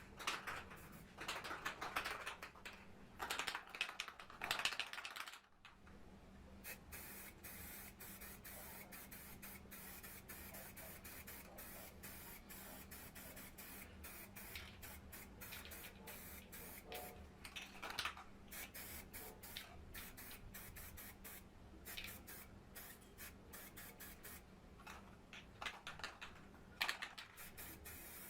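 Spray painting: several short bursts of spray hiss, then a long steady hiss, and more short bursts near the end.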